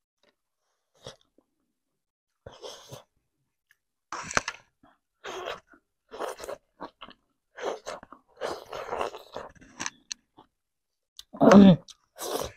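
A person chewing and biting food close to a lapel microphone, here cooked leafy greens and rice eaten by hand. The mouth sounds come in irregular bursts, sparse at first and then steady, with the loudest just before the end.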